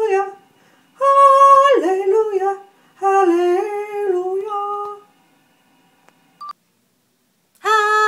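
A woman singing without words in long, high, wavering notes that slide up and down between phrases. She breaks off for a couple of seconds and starts again near the end.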